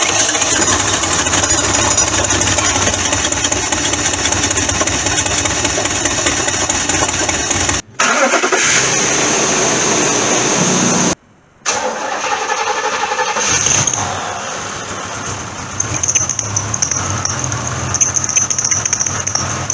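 Car engines running, several different engines in turn, cut together with a brief break about eight seconds in and a short silence about eleven seconds in.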